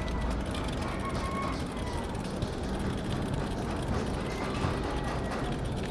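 Bicycle freewheel ticking rapidly as the rider coasts, over a low, steady rumble of tyres and wind.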